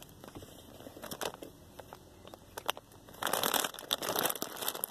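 Cheetos foil snack bag crinkling as it is handled: sparse crackles at first, then louder, continuous crinkling from about three seconds in.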